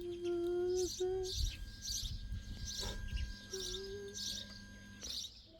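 Small birds chirping repeatedly in quick, short high notes, with a few drawn-out, steady-pitched calls or voice sounds mixed in.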